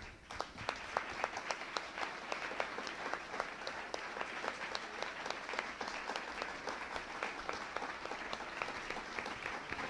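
Audience applauding, with many sharp individual claps over a steady wash of clapping that starts just after the beginning and keeps on.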